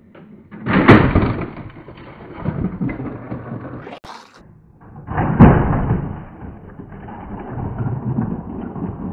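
Toy train launch track firing twice: each time a sudden loud plastic clack, then the plastic toy engine rattling and rumbling along the plastic track and around the loop, dying away over a couple of seconds.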